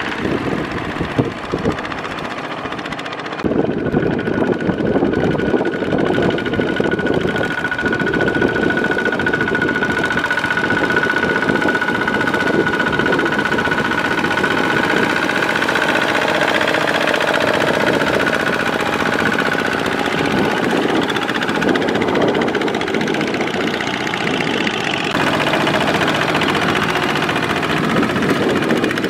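Two-wheel walking tractor's single-cylinder diesel engine running under load while its cage wheels churn through flooded paddy mud. The sound shifts abruptly a few seconds in and again near the end, and a steady high whine rides over the engine for about ten seconds.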